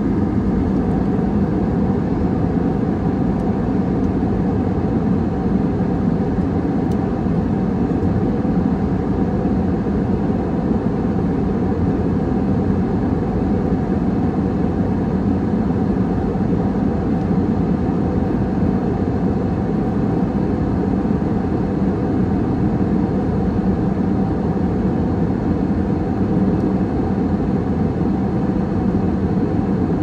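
Jet airliner cabin noise in flight: a steady low rumble of the engines and the air rushing past the fuselage, even and unchanging, with a faint steady hum over it.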